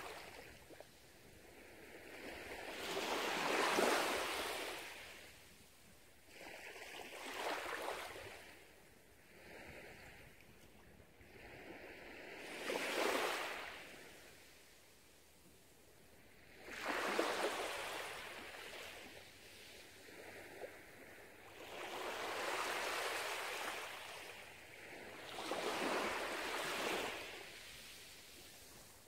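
Small waves lapping onto a sandy beach, six gentle washes in a row, each swelling up and fading away over a few seconds.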